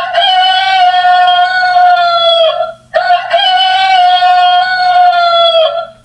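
Recorded rooster crowing, played twice by a children's talking-pen animal sound book. Each crow is one long call of about two and a half seconds that dips in pitch at the end.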